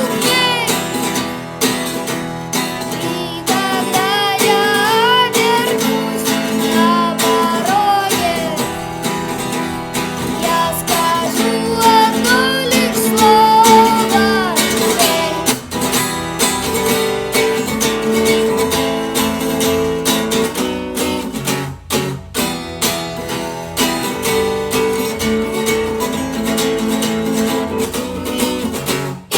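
Acoustic guitar strummed in a steady rhythm, with a singing voice over it for roughly the first half, then mostly guitar alone.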